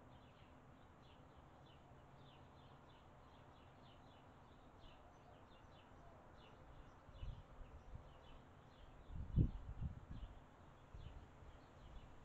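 Faint, quick high chirps of small birds, many to the second and irregular. A few low rumbling thumps come in the second half, the strongest about nine seconds in.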